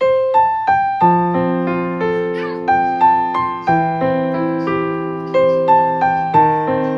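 Background piano music: a gentle melody of single struck notes, about three a second, over held chords in the bass.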